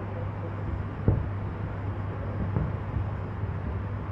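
Distant fireworks shells bursting as dull booms, the loudest about a second in and weaker ones later, over a steady low rumble.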